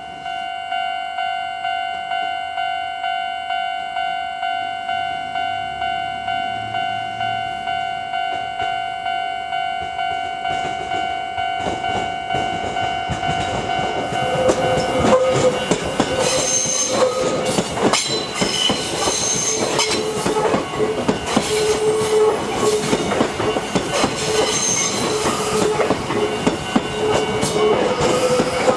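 A Japanese railway level-crossing warning bell starts ringing at about one and a half strikes a second. About halfway through, a train runs over the crossing with clattering wheels on the rail joints and squealing wheels, the bell still ringing over it.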